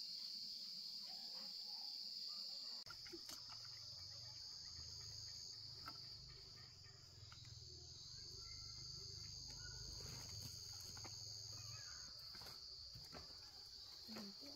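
Faint, steady high-pitched chirring of an insect chorus, with a second, higher tone that comes and goes. A low rumble sits underneath from about three seconds in until near the end.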